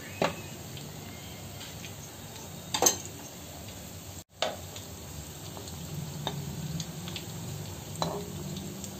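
Potato-stuffed bread rolls deep-frying in hot oil with a steady sizzle. A metal spoon clinks against the pan four or five times as the rolls are moved.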